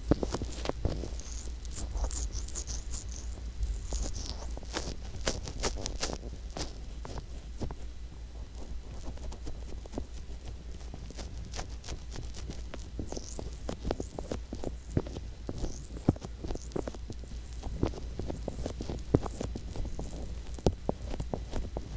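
Fingertips rubbing, pressing and squeezing the silicone ear of a binaural microphone, heard right at the mic as dense, irregular scratchy crackles and soft taps over a steady low rumble.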